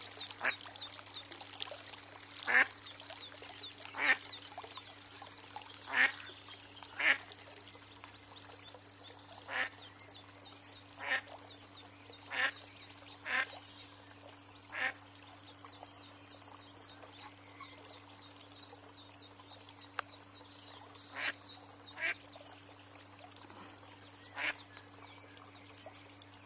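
Mallard quacking in single short calls, one every second or two, with a quiet spell in the middle. A faint steady hiss of water runs underneath.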